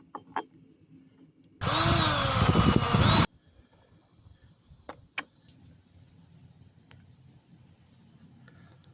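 A small motor runs in one burst of under two seconds, starting about a second and a half in, its pitch dipping and rising as it changes speed. A few faint clicks come before and after it.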